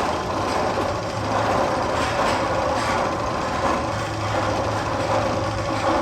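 Steady mechanical clattering noise from one of the Magnum XL-200 tunnel's sound effects, machine-like and train-like, holding an even level throughout.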